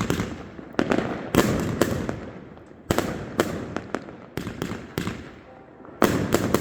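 Fireworks exploding: a dozen or so sharp bangs at uneven intervals, some in quick pairs, each dying away in an echo, over a continuous rumble of more distant bangs.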